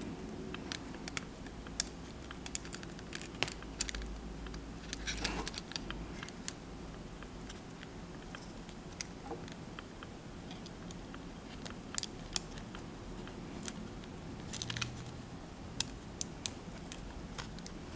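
Scattered, irregular small clicks and taps of fingers handling a Palm M515 PDA's circuit board and metal frame while pressing the new battery's small wire connector onto the board.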